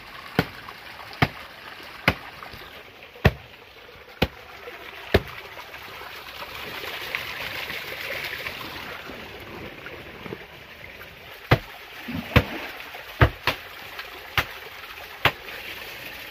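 Shallow stream water running over stones, with a series of sharp knocks, hard things striking, about once a second; the knocks stop for several seconds midway while the water sound swells.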